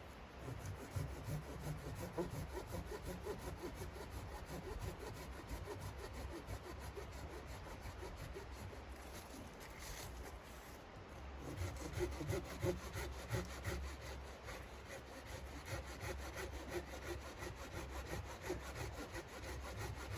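Saw cutting through wood in repeated rough strokes, easing off briefly about halfway and then resuming harder.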